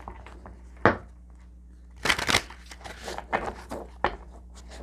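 Tarot cards being handled: a sharp tap about a second in, a short burst of card rustling around two seconds in, then a few lighter clicks, over a low steady hum.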